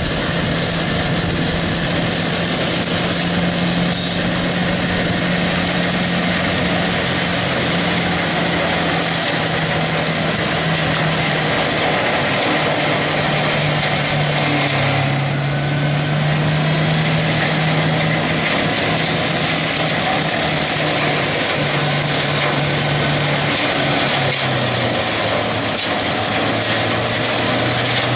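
Compact articulated loader's diesel engine running steadily under load while its front-mounted hydraulic mower attachment cuts through tall grass and weeds, a constant hum over a dense whir. The hum drops lower near the end.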